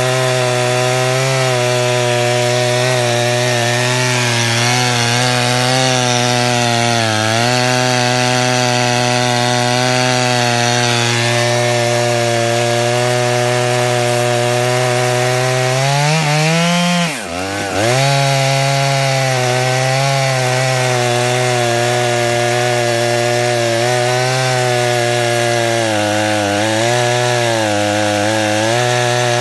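Large two-stroke chainsaw running at full throttle through a long lengthwise rip cut in a log on a chainsaw mill, its engine note steady under load with the chain cutting wood. About seventeen seconds in, the engine pitch climbs briefly, then dips sharply for under a second before coming back up to full speed.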